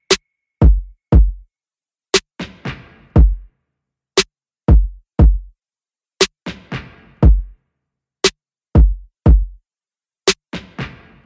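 Outro music: a sparse electronic drum-machine beat with no melody. Deep kick drums falling in pitch alternate with sharp snare-like hits, with gaps of silence between them, and the pattern repeats about every two seconds.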